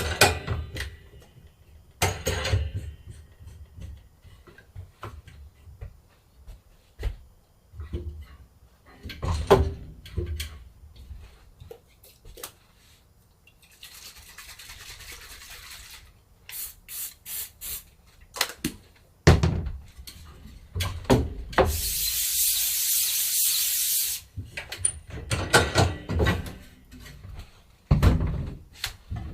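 Screen-printing plate-making work: knocks and clatter of handling tools and the screen frame, with a soft hiss lasting about two seconds in the middle, four quick hissing spurts, then a louder hiss of about two seconds.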